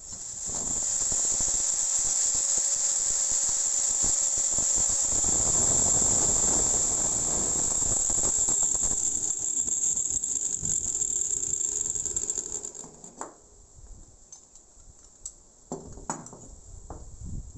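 Electric angle grinder with a thin cutoff disc running up and cutting into a steel strip, a loud, steady high-pitched whine with a rasping cut that stops about twelve seconds in. Then a few light metal clinks and knocks as the cut steel pieces are handled.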